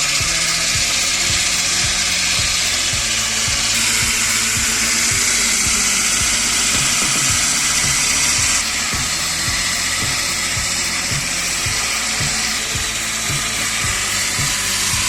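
Background music with a steady beat over the steady high-pitched noise of a power saw cutting wood. The machine noise shifts abruptly a few times.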